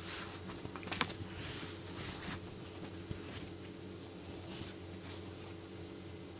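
Saree fabric rustling and swishing as it is handled and spread out by hand, in soft irregular strokes with a couple of slightly louder swishes about a second and two seconds in, over a faint steady low hum.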